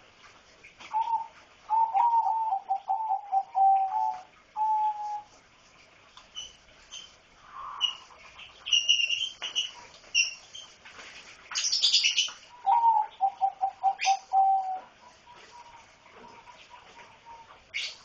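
A pair of lovebirds mating: two runs of rapid, short notes, each stepping down in pitch, with higher chirps and wing flapping in between.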